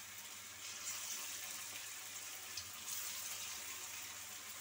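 Elephant foot yam patties (ol bora) deep-frying in hot oil in a wok: a steady sizzle with a few crackles.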